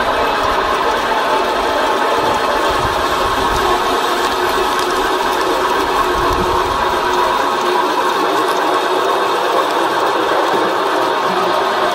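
Homemade screw-cone log splitter running, its spinning threaded steel cone boring into a round of wood and splitting it apart. A steady mechanical grinding with scattered clicks from the wood.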